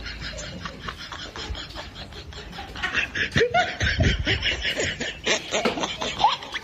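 A person laughing, a quick run of snickering bursts that starts about three seconds in and grows louder.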